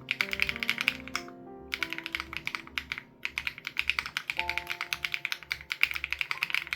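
Fast typing on an SPM AL87B mechanical keyboard with BSUN Raw switches and its sound-dampening foam removed: a rapid run of key clacks, broken by two short pauses about a second and a half and three seconds in. Background music with held notes and a steady low beat plays underneath.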